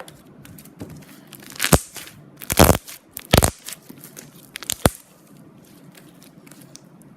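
Bubbly fluffy slime being squeezed and poked, its trapped air bubbles popping and crackling: several loud sharp pops in the first five seconds, then only faint small crackles.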